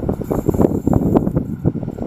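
Wind buffeting the microphone in loud, irregular gusts, over the fading rumble of a passenger train pulling away.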